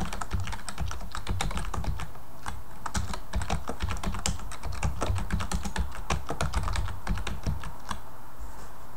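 Typing on a computer keyboard: a quick, uneven run of key clicks that thins out near the end.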